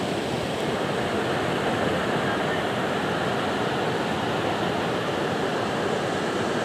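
Steady rushing of sea waves washing on the shore, even throughout with no distinct surges or knocks.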